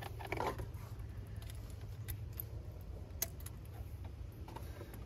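Scattered light clicks and rattles of a compression tester's hose and metal fittings being handled and connected at the engine bay, over a low steady background rumble.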